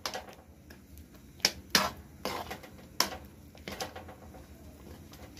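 Metal spatula stirring a thick milk-and-chhena mixture in a kadhai, knocking and scraping against the pan in irregular sharp clicks.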